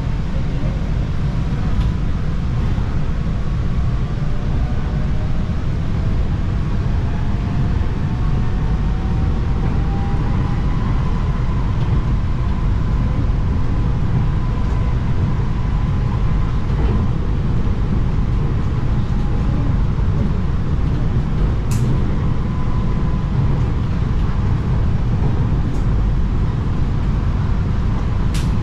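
In-cabin running noise of a Bangkok MRT Yellow Line monorail train (Innovia Monorail 300, rubber tyres on a concrete guideway) under way: a steady low rumble with a faint whine that rises in pitch over the first several seconds, then holds. Two short sharp ticks come near the end.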